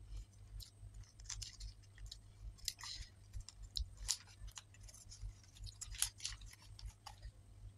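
Crinkly wrapper on a small sweet crackling and rustling in short, irregular crackles as it is unwrapped by hand.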